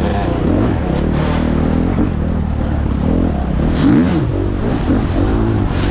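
Dirt bike's four-stroke engine being ridden hard in a race, its pitch rising and falling again and again as the throttle is worked, with brief clattering noises over it.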